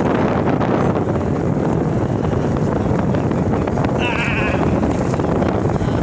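Steady wind buffeting and low rumble, with one short wavering animal bleat about four seconds in.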